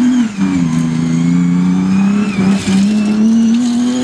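BMW E30 rally car's engine running hard at high revs as the car slides past on gravel. The engine note breaks briefly just after the start, then holds a steady high pitch.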